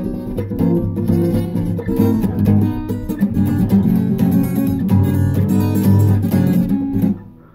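Guitar strummed in a steady, driving rhythm of chords, dying away just before the end.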